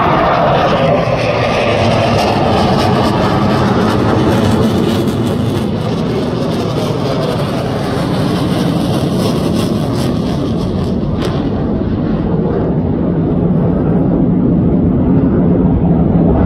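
Jet noise from a pair of F-16 fighter jets making a high-speed pass, the engine pitch falling over the first few seconds as they go by, then a steady low rumble. Toward the end the rumble grows louder as one jet climbs with its afterburner lit.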